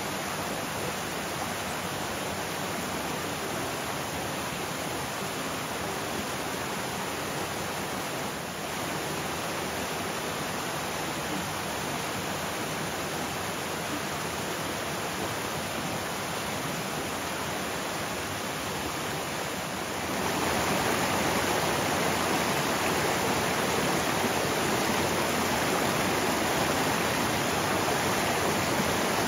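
Steady rushing noise, louder from about twenty seconds in.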